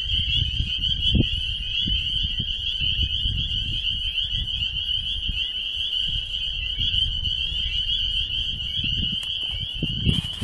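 Dense chorus of small frogs calling from a pool of water, merging into one unbroken high-pitched shrill. Low rumbling from wind or handling on the microphone runs underneath, with a sharp click near the end.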